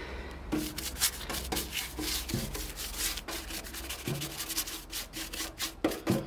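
A stiff paintbrush scrubbing rust converter onto a rusty metal fuel tank: quick, repeated scratchy strokes of bristles on rough metal, several a second, as the converter is worked into the rust.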